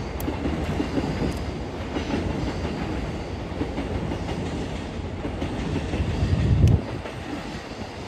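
Freight train of Taki 1000 tank wagons rolling over rail joints and points, wheels clacking as the cars move away. A loud low rumble builds about six seconds in and cuts off suddenly near seven seconds.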